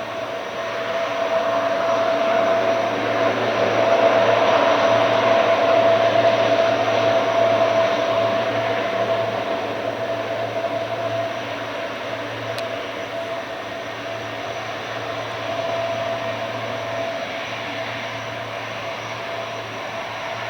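C-130T Hercules's four turboprop engines running: a steady drone with a held whine over a low hum, swelling over the first few seconds and then easing off.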